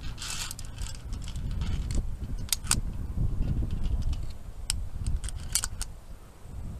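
Steel via ferrata carabiners clinking against the safety cable and each other: a few sharp metallic clicks, two close pairs in the middle of the stretch, over a steady low rumble.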